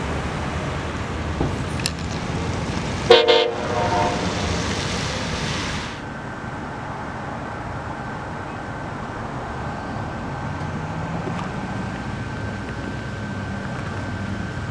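One short train horn blast about three seconds in, over the steady noise of the train approaching. About six seconds in the sound drops to a quieter steady background with a faint high tone.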